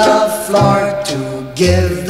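Background music with singing over a low bass note that sounds about once a second.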